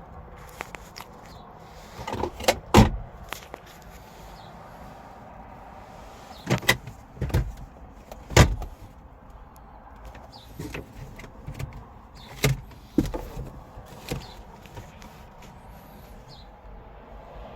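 A string of sharp knocks and clunks on a car's doors and body, with a few in quick succession about two to three seconds in, the loudest about eight seconds in, and several more a few seconds later.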